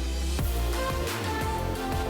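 Background music: an electronic track with a bass line and sweeping low tones.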